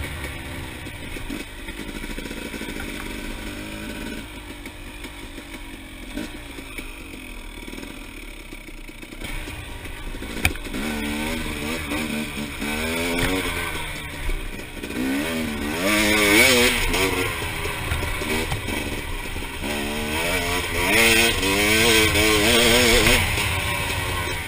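Off-road motorcycle engine revving up and down as the bike is ridden hard along a dirt trail. It eases off for a few seconds, then pulls hard again from about ten seconds in, pitch rising and falling with the throttle, with a single sharp knock about ten seconds in.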